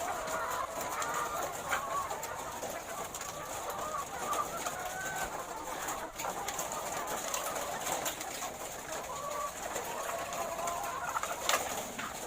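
A flock of laying hens clucking and crooning together, many overlapping calls without a break. There are a few sharp clicks, and a louder knock near the end.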